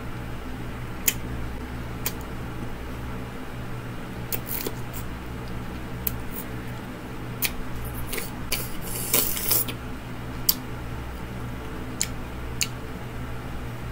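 Mouth sounds of someone sucking the seasoning powder off a rolled tortilla chip (a blue Taki) without chewing: scattered wet clicks and lip smacks, with a short burst of sucking about nine seconds in. A steady low hum lies underneath.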